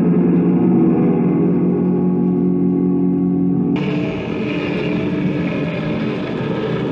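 Electric guitar dragged along the ground, its strings and body picked up and played through a guitar amplifier. It makes a steady ringing drone that, about four seconds in, suddenly gives way to a rougher, noisier sound.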